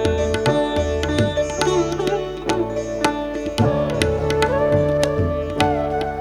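Live instrumental music from a band: a melody with bending, sliding notes over a steady rhythm of drum strokes.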